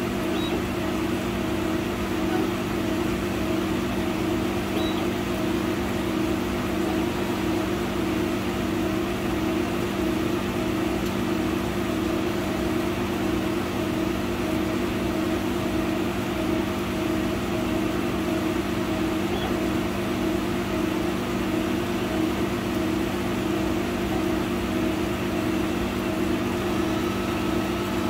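100-watt laser cutter running while it cuts an MDF sheet, a steady machine hum with a few fixed tones from its fans and motion system as the gantry moves the cutting head.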